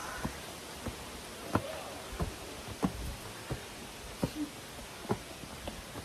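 Footsteps climbing stone stairs, one step about every two-thirds of a second, over a steady background hiss.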